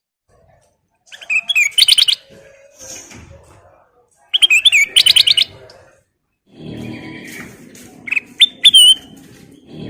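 Kutilang emas bulbul singing in short bursts of rapid, sharp chirps, with separate calls near the end. A steady low rumble runs under the second half.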